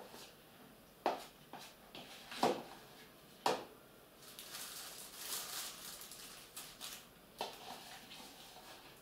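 A metal spoon knocking and scraping against a mixing bowl as soft ganache is scooped into a plastic freezer bag, with a few sharp clicks, then a stretch of plastic bag rustling a little past the middle.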